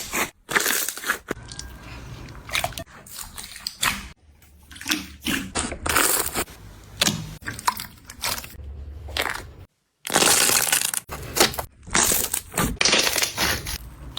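Slime being worked and squeezed, giving quick, irregular crackling and crunching sounds with sharp pops. The sound cuts out for a moment a little under ten seconds in.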